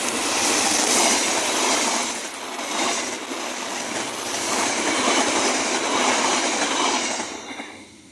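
A train passing close by: loud rushing noise of wheels on rails, swelling and easing as the cars go past, then dying away quickly near the end.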